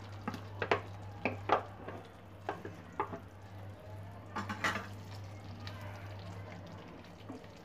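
A spatula stirring whole boiled potatoes through a thick, simmering masala gravy in a pan. It knocks and scrapes against the pan several times in the first second and a half, then again about three and four and a half seconds in. A faint sizzle and a low steady hum run underneath.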